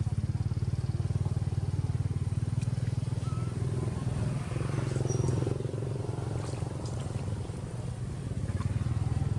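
A small engine runs steadily with a low, pulsing rumble. It eases off a little in the second half and picks up again near the end.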